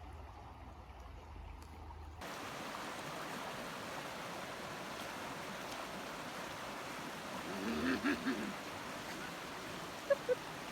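Creek water running steadily, coming in suddenly about two seconds in after a low hum. A brief pitched call sounds about eight seconds in, and two short high blips follow near the end.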